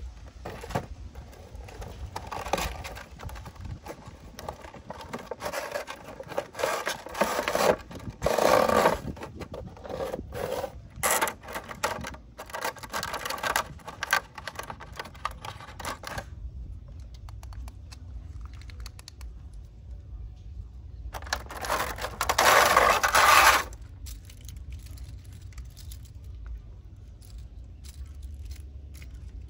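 Cardboard and plastic toy packaging handled, scraped and rustled as a box is opened and a plastic tray emptied, with many small clicks and knocks. The handling goes quiet a little past halfway, then a loud rustling burst lasts a couple of seconds about three quarters of the way through.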